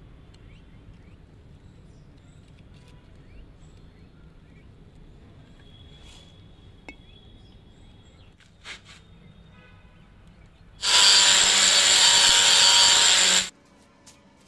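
A power cutter cutting through a granite strip for about two and a half seconds, loud and even, starting and stopping abruptly. It follows a stretch of faint background with a few light taps.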